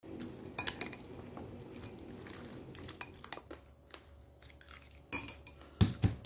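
Chopsticks and a metal spoon clinking and scraping against a ceramic bowl as noodles are mixed and eaten, with a scatter of sharp clinks, and a couple of dull thumps near the end.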